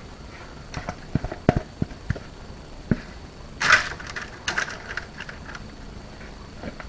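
A kitchen utensil knocking and scraping as thick, stiffening fudge is put into a tray lined with baking paper. There are a few light knocks in the first three seconds, then a short scraping rustle a little past halfway.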